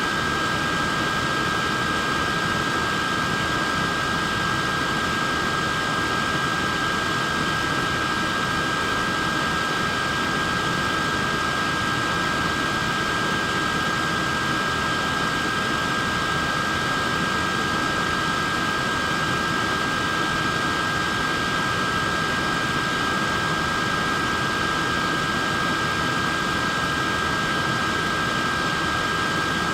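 Portable neck fan running steadily: an even airy whir of its blades with a steady high-pitched motor whine on top, unchanging throughout.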